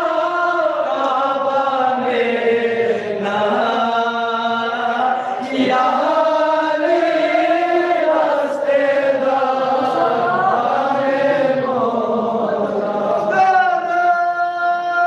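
A Balti qasida, a devotional poem, chanted by male voice into a microphone, in long held melodic lines whose pitch bends slowly up and down. Near the end the line settles into a clearer, steadier held note.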